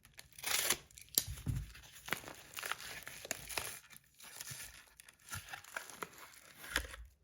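Packaging being crinkled and torn open by hand: irregular rustling with sharp crackles and tears, in a small room.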